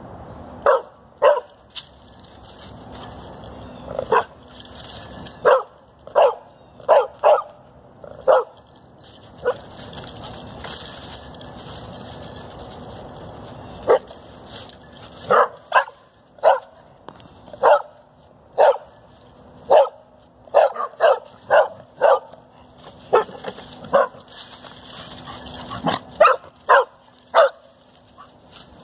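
Dogs barking in many short, separate barks in scattered clusters, with a lull of a few seconds partway through: hunting barks at a chipmunk hidden in a stone wall.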